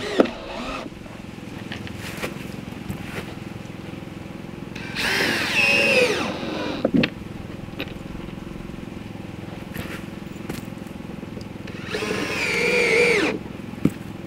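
Power drill run in two bursts of about two seconds each, about five seconds in and near the end, its pitch sliding up and down as the speed changes, with a few sharp clicks between.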